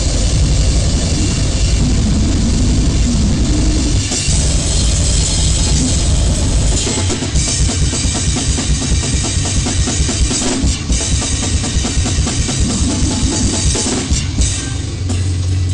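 Goregrind/noisecore recording played loud: a dense, distorted wall of noise over fast drumming, with bass drum and snare hits packed tightly together, most densely from about seven seconds in.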